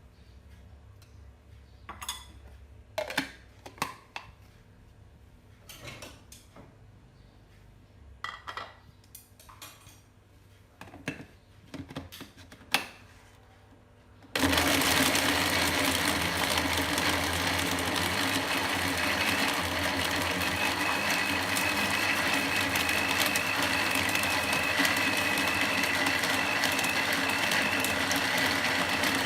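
Scattered knocks and clinks for about the first half, then an electric food grinder switches on and runs steadily, mincing the seasoned fish into paste.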